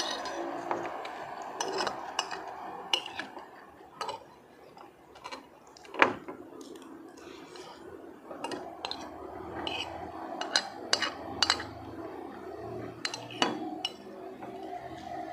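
Metal spoon clinking and scraping against a plate while scooping rice, in irregular sharp clinks, the loudest about six seconds in, with mouth-close chewing sounds in between.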